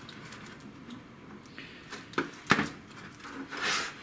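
Handling noises from the opened induction heater: faint rustling, two sharp clicks a little after two seconds in, and a louder scraping rustle near the end.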